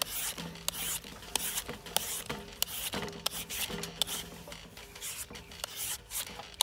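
Green papaya being shredded with a serrated julienne peeler: quick scraping strokes down the fruit's firm flesh, about three a second.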